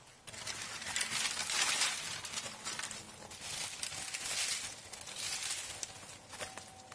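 Leafy branches rustling and twigs crackling and snapping as a cut sapling is dragged through dense brush, in uneven surges with many sharp crackles.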